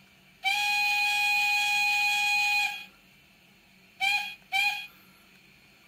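Model steam locomotive whistle from a SoundTraxx Econami sound decoder, set to the BR Standard 4 whistle and played through the Bachmann 4MT tank engine's speaker. It gives one long blast of about two seconds, then two short toots.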